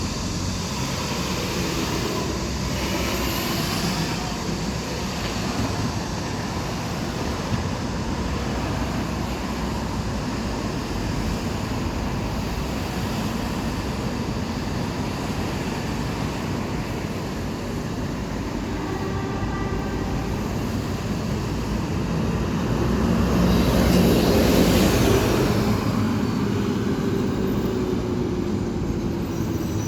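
City bus running, a steady mix of engine and road noise that swells louder for a few seconds about two-thirds of the way in, followed by a faint tone sliding slowly down.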